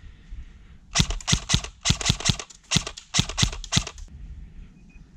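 Airsoft electric rifle firing a quick string of about a dozen shots in roughly three seconds, unevenly spaced, in short groups.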